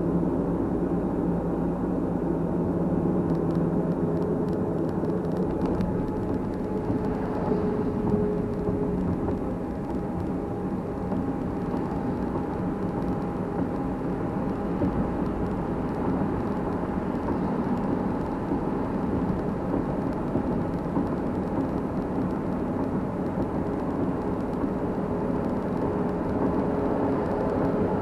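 Steady road and engine noise of a car driving at speed, heard from inside the cabin, with a faint steady whine. The low rumble thins out about five seconds in as the car drives into a road tunnel.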